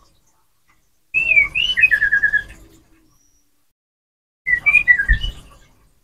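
White-rumped shama (murai batu) singing two short phrases of clear, slurred whistles. The first comes about a second in and ends in a quick run of about five repeated notes; the second comes about a second before the end.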